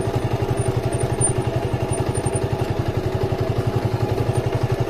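Motorcycle engine running steadily under way, with a fast, even low pulse.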